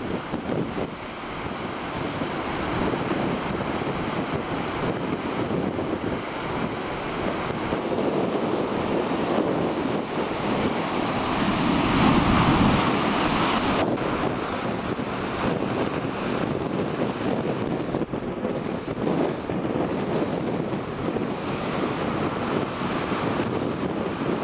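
Heavy storm surf breaking and washing up the shore, with wind buffeting the microphone. The noise of the waves builds to its loudest about halfway through, then drops off abruptly a couple of seconds later.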